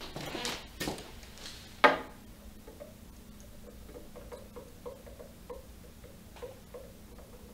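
A few short knocks and clicks, the sharpest about two seconds in, then a faint, even ticking at about three ticks a second.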